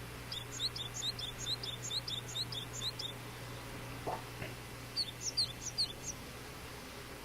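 Japanese tit chirping: a rapid run of high, sharp two-part notes, about four a second, for some three seconds, then after a pause a shorter run of a few louder notes.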